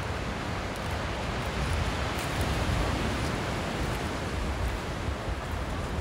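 Sea waves washing onto a beach as a steady rush of surf, with low wind rumble on the microphone.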